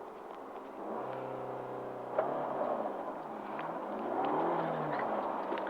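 Rally car engine revving hard as the car accelerates away, the pitch climbing and then dropping at each gear change, about two seconds in and again later, getting louder as it goes.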